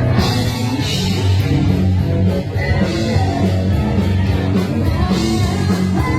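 Rock band playing, with electric guitar, drums and singing.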